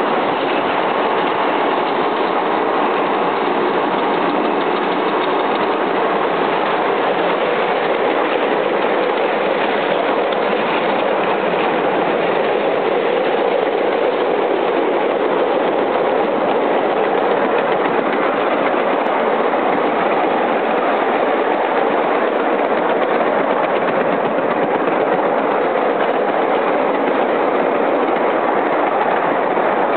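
Steady running noise of a 7-1/4 inch gauge miniature steam train, heard from a riding car: wheels rolling along the rails.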